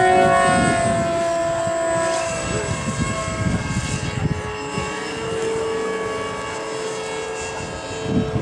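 Radio-controlled model aircraft motors whining, several steady tones at different pitches, one rising as it speeds up right at the start, with wind rumbling on the microphone.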